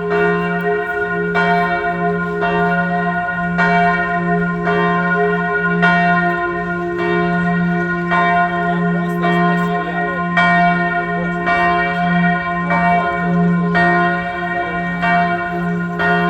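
Bell ringing on the hour, struck about once a second, each stroke's ringing carrying over into the next.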